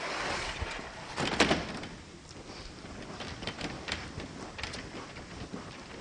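Chalkboard noises: a brief rushing scrape, a louder knock about a second and a half in, then scattered light taps of chalk on the board.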